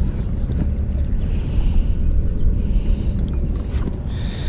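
Wind buffeting the camera's microphone: a steady low rumble with a few soft hissing swells.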